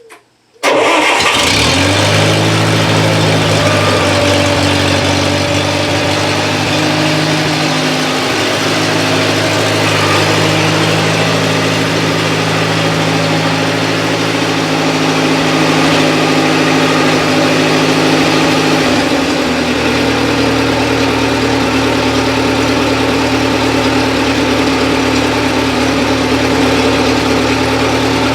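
Bobcat 610 skid steer's Wisconsin four-cylinder gasoline engine starting on fresh spark plugs without the choke, catching almost at once, then running steadily. About 19 seconds in its speed drops to a lower, steady idle.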